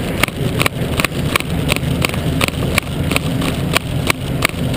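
Road bike rolling at speed over raised painted rumble strips: wind and tyre rumble with a regular knock about four times a second as the tyres cross each strip and jolt the bike-mounted camera.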